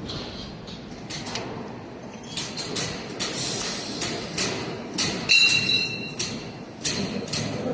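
Metal parts knocked and clinked together as they are handled, a dozen or so sharp knocks; the loudest, about five seconds in, rings briefly.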